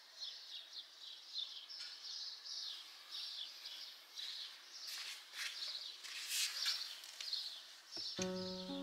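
Birds chirping in the background, a faint, irregular high chirping with a few short clicks partway through. Music with piano-like notes starts just before the end.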